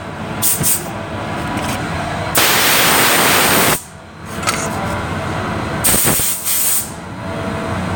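Shop compressed-air blow gun blasting: a few short puffs in the first second, then two long, loud blasts of hissing air, the first about a second and a half long and the second about a second.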